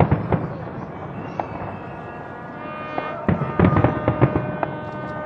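Fireworks bursting in two quick clusters of booms and pops, one right at the start and another from about three to four and a half seconds in, with music playing underneath.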